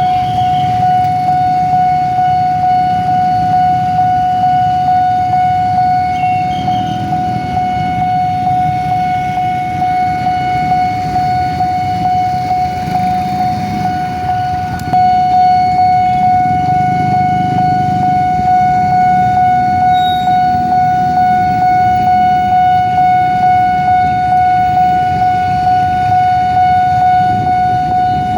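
Railway level-crossing warning alarm sounding one steady, unbroken high tone, with a low rumble of vehicles underneath. It gets a little louder about halfway through.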